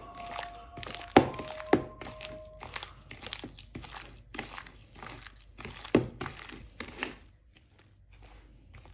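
Kitchen handling while mixing pastry dough: a string of knocks and clicks of utensils and containers against a bowl, with some rustling. A couple of the knocks ring briefly. The clatter stops about seven seconds in.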